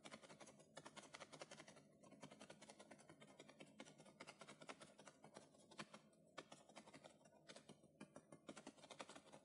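Near silence broken by faint, irregular clicking, a few sharp clicks a second.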